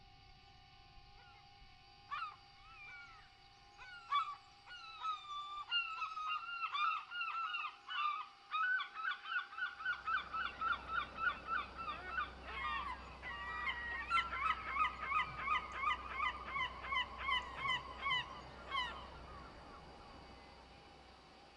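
A flock of birds calling: many short, repeated calls that start sparsely about two seconds in, then overlap in a fast, dense run before stopping shortly before the end.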